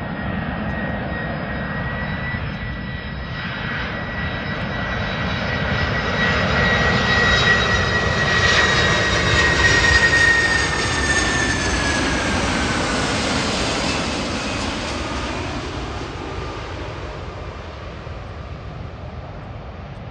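Boeing 747-400 freighter's four jet engines on final approach, passing overhead. The sound swells to its loudest about halfway through. A high steady whine then drops in pitch as the aircraft passes, and the noise fades as it moves away toward the runway.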